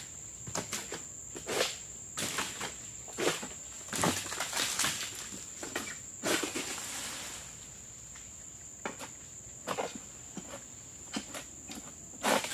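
Egrek pole sickle working at oil palm frond bases during pruning: irregular sharp knocks and cuts with rustling of dry fronds, a longer cutting rustle about six seconds in. A steady high-pitched insect buzz runs underneath.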